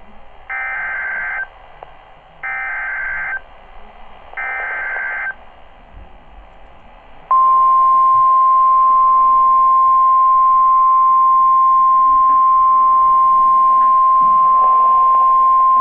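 NOAA Weather Radio emergency alert signal: three one-second bursts of SAME digital header tones a second apart, then, about two seconds later, the steady 1050 Hz warning alarm tone, which sounds on to the end. Together they mark the start of a new warning broadcast.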